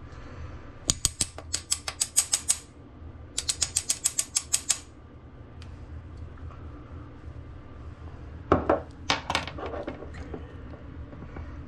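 Spice jar shaken over a plastic mixing bowl: two runs of quick rattling clicks, about six a second, each lasting a second or so. A few louder clicks and knocks follow about eight and a half seconds in.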